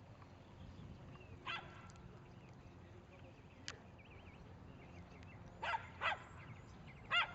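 Dog barking in short single barks: one about a second and a half in, then a quick pair near the end and another as it ends.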